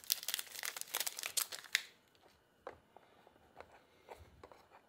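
Thin plastic wrapping crinkling and rustling for about two seconds as it is pulled off a new smartphone, then a few light clicks and taps as the phone is handled.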